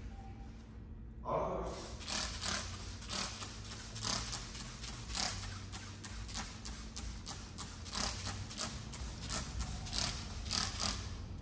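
Plastic trigger spray bottle squirting in quick repeated sprays, about two or three a second, wetting a car's rear window glass with slip solution for tint film.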